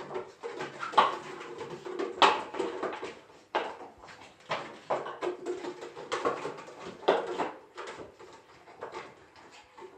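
A plastic drink bottle crackling and clattering as a Shih Tzu paws and noses it across the floor, in irregular knocks about once a second.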